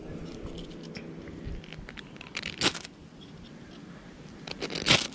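Ferro rod scraped with a steel striker to throw sparks: a series of short scraping rasps, two of them louder, about two and a half seconds in and near the end.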